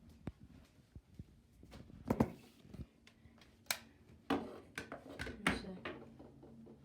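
Handling noise: a run of irregular clicks and knocks as objects are picked up and moved, the loudest about two seconds in and several more between about three and a half and five and a half seconds in.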